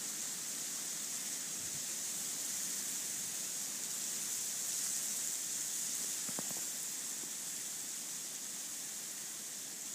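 Ice-glazed bare tree branches sizzling in gusty wind as the glaze melts, a steady high hiss like frying eggs, swelling slightly about halfway.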